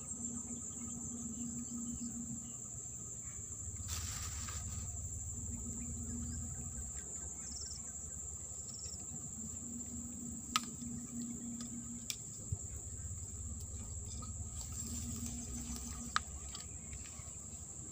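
A steady, high-pitched insect chorus from the grass and swamp, with a few sharp clicks and rustles from fishing tackle being handled.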